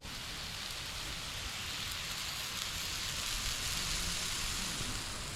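Steady sizzling hiss of food cooking on a camp grill, swelling slightly through the middle.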